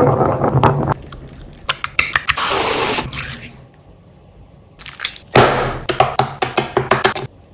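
Crushing sounds: crunching and crackling clicks of something being pressed and broken, in two spells with a quieter gap between, and a short rushing noise about two and a half seconds in.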